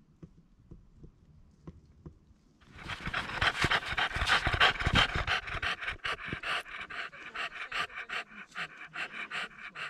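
French bulldog panting hard right at the microphone, starting a little under three seconds in: quick, rhythmic breaths, several a second.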